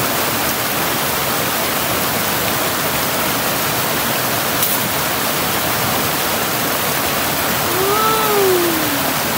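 Mountain stream rushing over rocks, a steady loud wash of water. About eight seconds in, a short pitched sound rises and then falls away.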